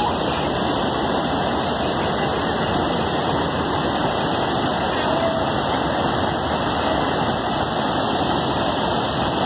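River water pouring over a stone weir into churning water below, a steady, unbroken rushing.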